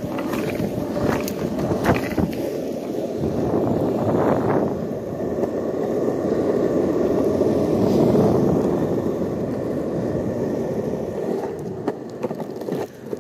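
Skateboard wheels rolling on pavement: a steady rumble with a few sharp clicks and knocks in the first seconds, dying away near the end as the board slows.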